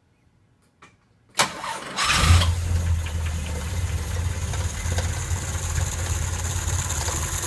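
Car engine cold start: a click, a short burst of starter cranking, then the engine catches about two seconds in, revs up briefly and settles into a steady idle. The owner titles this engine's sound as an engine knock.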